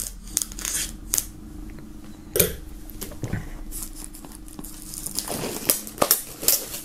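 Plastic shrink-wrap being slit with a knife and torn off a cardboard box: crinkling and irregular sharp crackles, busiest near the end.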